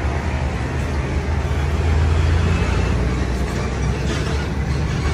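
Steady low rumble of motor vehicle engines and road traffic, a little louder about two seconds in.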